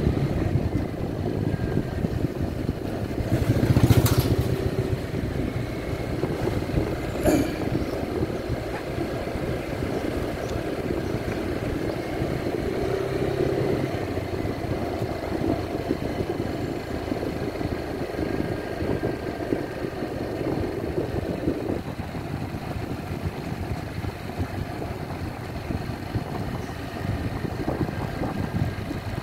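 Yamaha NMax 155 scooter's single-cylinder engine running at a steady cruising speed, heard from the rider's seat. Two sharp knocks stand out, about four and seven seconds in.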